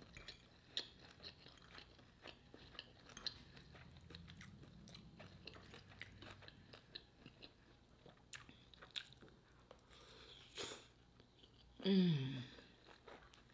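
Close-miked chewing and wet mouth sounds of someone eating a shrimp, sausage and cabbage stir fry, with many small, sharp clicks. Near the end comes a short hummed sound falling in pitch.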